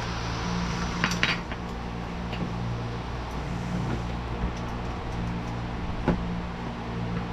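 Small metallic clinks of a screwdriver working the screws on a car's vent window frame as they are tightened: two close together about a second in and another near the end. A steady low hum runs underneath.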